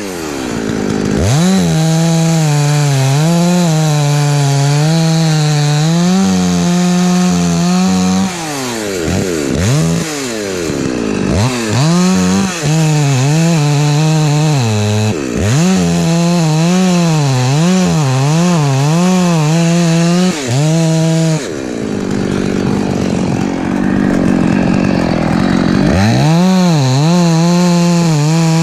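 Husqvarna 254 two-stroke chainsaw running at high revs and cutting wood, its pitch wavering under load. The throttle is let off about eight seconds in and again past the twenty-second mark, the engine dropping back before revving up again.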